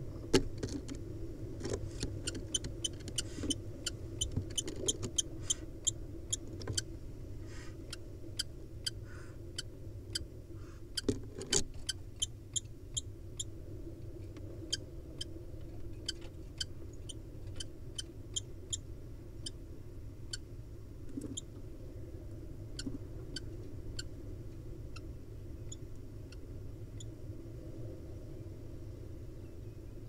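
Kestrel calling a rapid series of short, high, sharp notes, dense at first and thinning out later, over a steady low hum.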